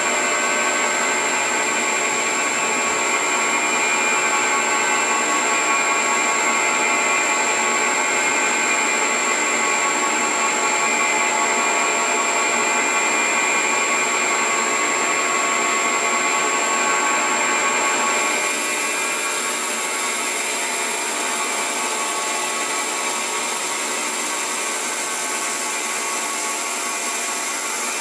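Milling machine running and cutting a Volkswagen five-cylinder main bearing cap, a steady machining whine. About two-thirds of the way through it eases slightly and a high tone drops out.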